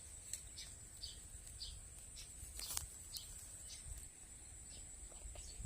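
Faint outdoor field ambience: a steady high-pitched drone with short high chirps repeating every fraction of a second, and one sharp click about halfway through.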